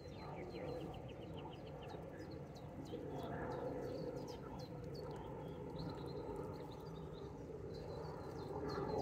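Birdsong, many short high falling chirps repeated throughout, over a steady low rushing noise and water stirring as a carp is released from a wet sling in the lake margin.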